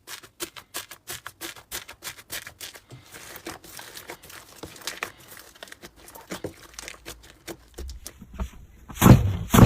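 Slime being worked by hand, making a quick string of small clicking, crackling pops, with a louder burst near the end.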